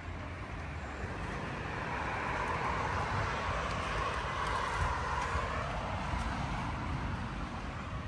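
Road traffic: a passing vehicle's noise swells to a peak around the middle and fades again, over a steady low rumble.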